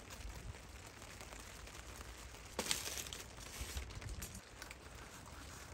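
Hands working thin wooden craft pieces and bamboo sticks: light scraping and clicking, with a louder crackling scrape about two and a half seconds in, over a low steady rumble.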